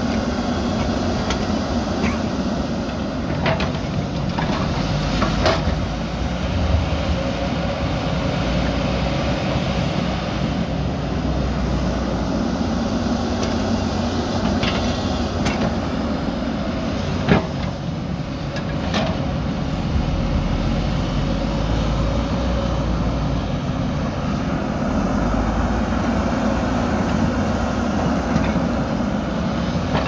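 Hyundai 220 crawler excavator's diesel engine running steadily under load as it digs soil and rock, with a few sharp knocks of the bucket and stones.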